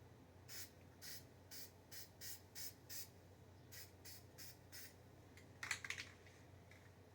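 Short bursts of spray paint hissing, about ten of them spaced a fraction of a second apart, then a brief louder rattle just before six seconds in.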